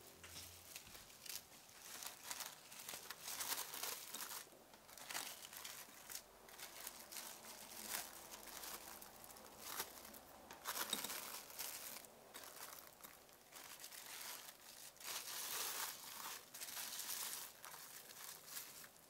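Plastic cling film crinkling and rustling in irregular bursts as it is stretched over a glass bowl and pressed by hand onto the surface of vanilla pudding cream.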